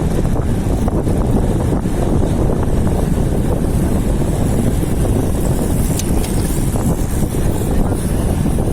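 Heavy wind buffeting the microphone of a camera on a moving road bicycle: a loud, steady low rumble.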